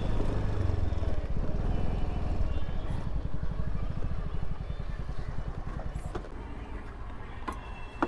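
Scooter engine running with road noise while riding, a low, evenly pulsing engine note that gradually gets quieter toward the end.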